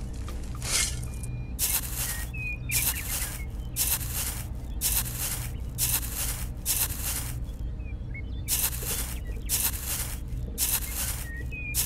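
A miniature shovel scraping and scooping loose dry soil in regular strokes, about one and a half a second, with a short pause just after the middle, over a low steady hum.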